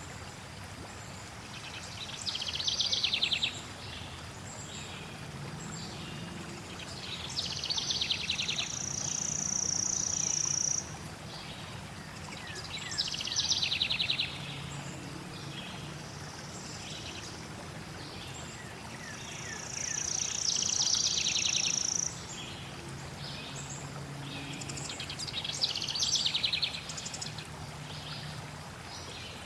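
A songbird sings a fast trilled phrase five times, about every five to six seconds; some phrases end in a long high whistle. Steady flowing water runs underneath.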